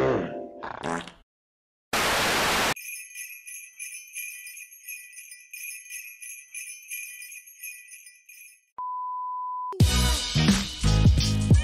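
Sleigh bells jingling for about six seconds, just after a short burst of hiss. Then a steady beep lasting about a second, and funky music starts.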